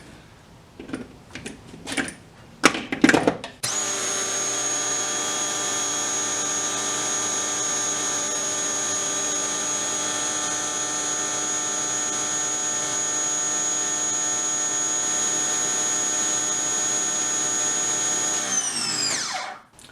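Ryobi 1600 PSI electric pressure washer running flat out, its motor and pump giving a steady whine while it sprays through a 3.0 orifice nozzle. A few light clicks and knocks come first, then the machine starts abruptly and runs evenly for about fifteen seconds. It stops as the trigger is released, falling in pitch as the motor winds down.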